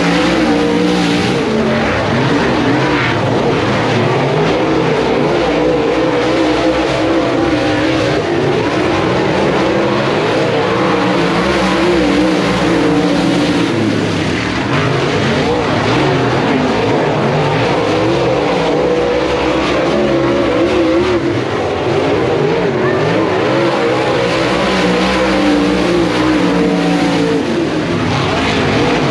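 Engines of a pack of dirt-track race cars running around the oval, several engine notes overlapping and wavering steadily as the cars circle.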